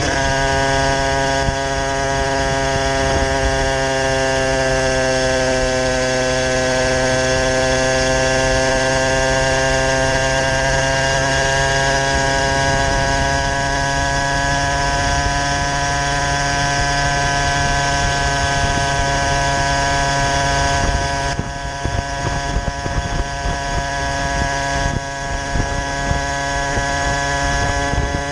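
Two-stroke single of a Derbi 50 with a 70 cc Airsal cast-iron kit, a 19 mm Dellorto carburettor and a Bidalot expansion exhaust, buzzing at steady high revs. The pitch sags slightly a few seconds in, then climbs slowly. Wind rumbles on the microphone, and the level wavers from about two-thirds of the way through.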